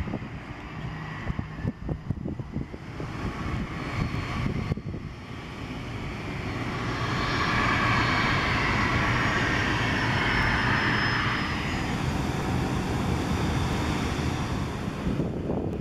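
Twin rear-mounted turbofan engines of a Delta Connection Bombardier CRJ regional jet at taxi power: a jet rush with a faint high whine that swells from about five seconds in, is loudest in the middle and slowly eases off.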